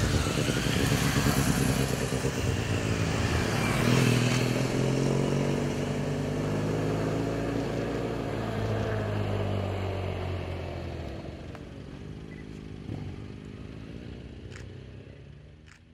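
Touring motorcycles riding past one after another, engine pitch rising and falling as each goes by, then growing fainter as the group rides away until the sound fades out near the end.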